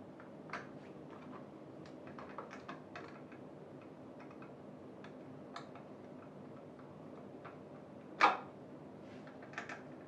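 Scattered light clicks and taps of gaming-chair parts and fittings being handled during assembly, with one sharper, much louder knock about eight seconds in, over a low steady room hum.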